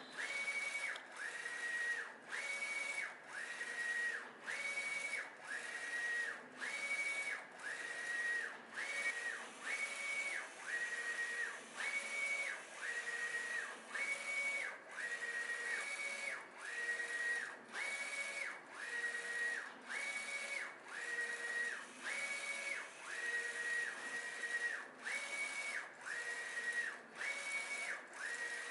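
X3040DH A3 direct-to-garment printer's print-head carriage sweeping back and forth across a T-shirt, its drive motor giving a whine on each pass. The passes come about one a second with short pauses between, alternating slightly higher and lower in pitch with the direction of travel.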